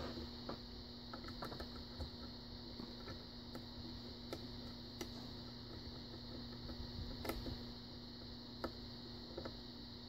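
Faint, irregular small metallic clicks and scrapes of a lock pick working the pin stacks of a brass pin-tumbler challenge lock held under tension during single pin picking, over a steady low hum.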